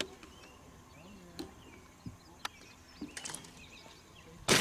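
A few faint sharp cracks, then a single loud gunshot near the end with a long echo trailing after it.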